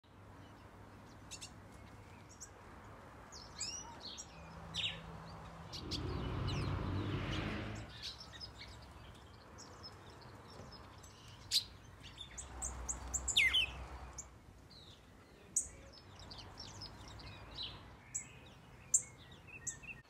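Small aviary finches chirping and calling, many short high tweets and quick rising and falling notes scattered throughout. A broad rushing noise swells for about two seconds around six seconds in.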